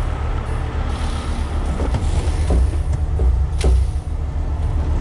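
Truck engine idling as a steady low rumble, with a few light knocks about two, two and a half and three and a half seconds in.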